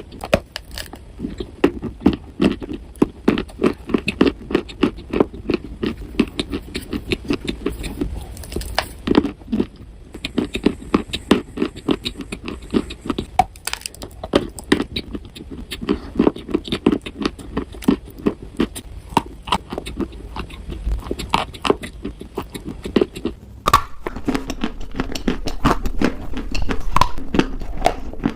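Dried clay being crushed and crumbled, a dense run of crackles and snaps. A little over two-thirds of the way through there is a brief break, and the crunching resumes louder.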